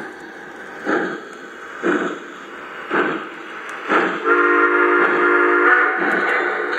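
Lionel Southern Pacific GS-2 Daylight model steam locomotive's sound system chuffing slowly, about once a second, with a steady multi-note steam whistle blown for about a second and a half just past the middle.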